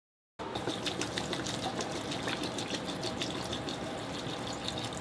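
Water being poured into a container, a steady splashing stream. It starts abruptly about half a second in.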